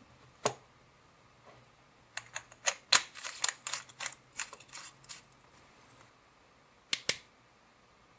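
A small aluminium LED flashlight being put back together: a single knock as the battery holder goes into the body, then a run of small clicks and scrapes as the knurled tail cap is screwed on. Near the end two quick clicks of the switch turn the light on.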